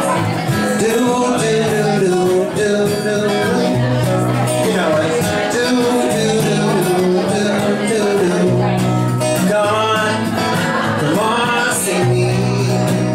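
A solo acoustic guitar strummed with a male voice singing over it, the sung melody sliding up and down in pitch above steady bass notes from the guitar.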